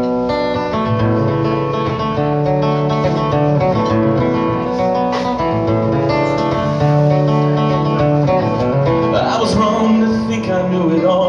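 Live band with a strummed acoustic guitar and an electric guitar playing a song's opening bars. A wavering melody line comes in about nine seconds in.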